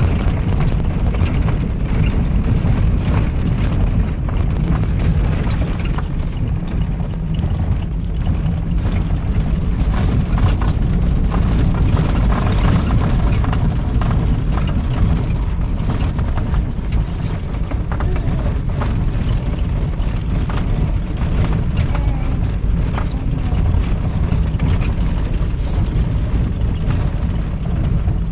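Inside a 4x4's cab driving on a gravel road: a steady low rumble of engine and tyre noise, with scattered light knocks and rattles.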